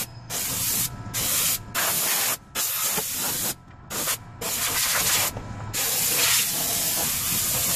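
Compressed-air blow gun hissing in about six bursts with short gaps between them, blowing dust out of a truck cab; the last burst is the longest.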